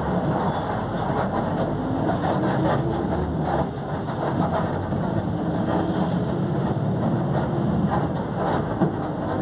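Volkswagen 17.230 OD Euro V bus running, its differential growling loudly under the steady drivetrain noise, with scattered short rattles.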